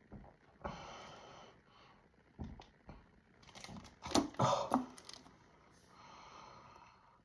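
A person chugging soda from a 2-liter plastic bottle: hard breaths through the nose between swallows, mixed with clicks and crackles of the plastic bottle, loudest in a cluster about four seconds in.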